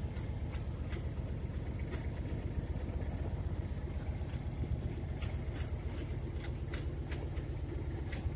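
A vehicle engine idling steadily, heard from inside the cab as a low, even hum, with a few scattered sharp clicks and taps.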